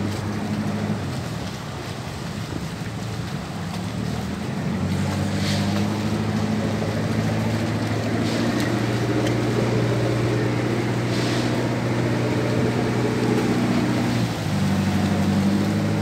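Twin outboard motors of a cabin motorboat running under throttle as the boat turns on the spot, churning the water. The engine note grows louder about five seconds in and drops back near the end.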